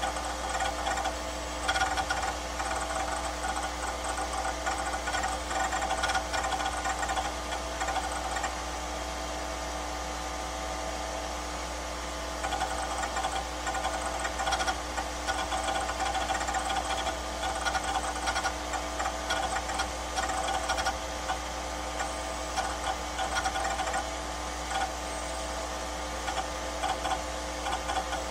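A small machine chattering rapidly over a steady electrical hum. The chattering stops for about four seconds around a third of the way in, then starts again.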